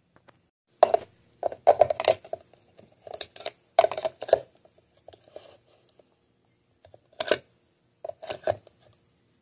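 Plastic clicks and knocks of a charging plug being pushed in and a handheld ham radio being handled in its charging cradle. A run of clicks comes over the first few seconds, then one sharp click and a few lighter knocks near the end.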